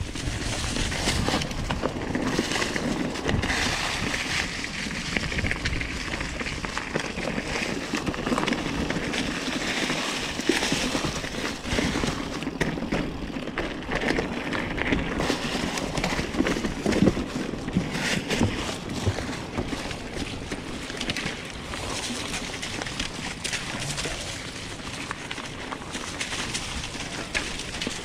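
Mountain bike riding noise picked up by a handlebar-mounted camera: tyres rolling over dry leaves and dirt, with short knocks and rattles from the bike over rough ground.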